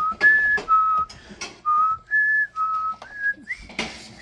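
A person whistling a tune in short held notes that step up and down between a few pitches. Clicks and knocks of parts being handled come through the whistling, with a louder clatter near the end.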